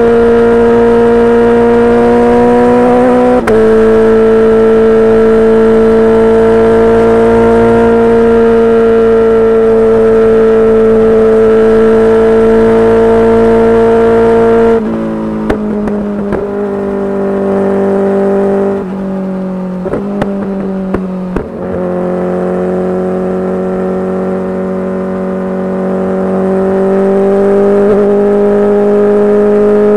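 Kawasaki Ninja H2's supercharged inline-four running loud through a full titanium exhaust, holding steady revs. Its pitch steps down slightly about three seconds in. Halfway through it comes off the throttle, the note falls and the exhaust pops several times, then the revs slowly build again near the end.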